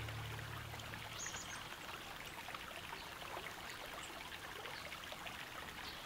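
River water trickling and lapping in the shallows, with small light splashes of water around hands holding a salmon for release.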